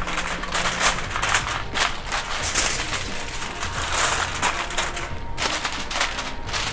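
Aluminium foil crinkling and crackling in irregular rustles as it is pressed and crimped down around the rim of a skillet.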